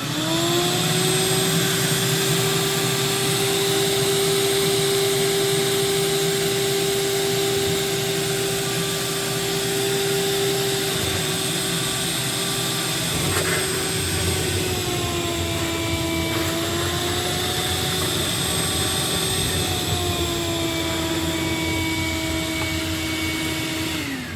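Wet/dry shop vacuum, its filter removed, sucking water from the basin: the motor spins up, runs with a steady whine that wavers up and down in pitch over the second half, then winds down and stops near the end. There is one sharp knock about halfway through.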